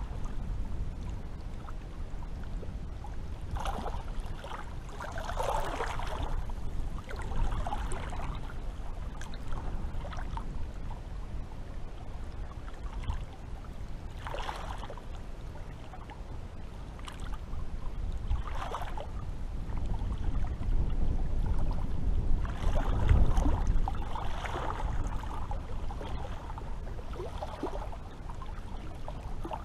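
Sea water lapping and splashing in irregular gushes every second or two, over a steady low rumble.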